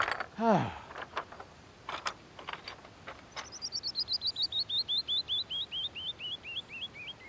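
A man gives a short grunt and loose stones clack a few times underfoot on a rock slide. Then a songbird sings a long cascade of clear whistled notes, about five a second, falling steadily in pitch and slowing a little toward the end.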